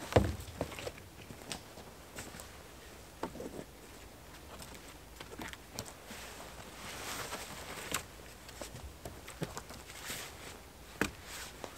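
Wooden poles knocking and clattering as they are laid against a stick A-frame shelter, with footsteps and rustling on the leaf- and needle-covered forest floor. A sharp knock comes right at the start and another near the end.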